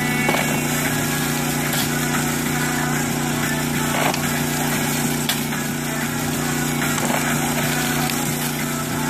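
Small engine-driven water pump running steadily, feeding a highbanker sluice. A few short scrapes and thuds from a shovel digging gravel and dumping it on the sluice stand out over it.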